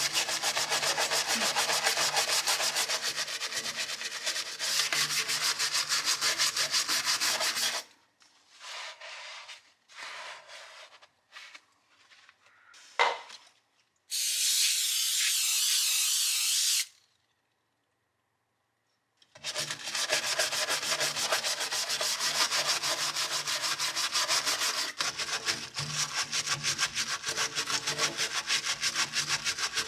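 Fast, even back-and-forth rubbing strokes, like scrubbing with a stiff brush. They stop for about ten seconds of scattered knocks and a steady hiss lasting about three seconds, then resume.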